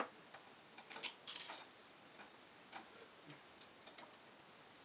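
Spoons and forks clicking and clinking faintly against glass soup bowls as two people eat, at irregular intervals, with a short hiss about one and a half seconds in.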